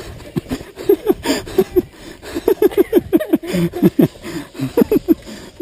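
A person laughing close to the microphone, in quick repeated short bursts that fall in pitch.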